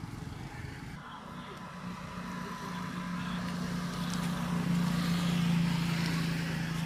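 A motor vehicle passing on a nearby road: a steady engine hum that grows louder to a peak about five seconds in, then begins to fade.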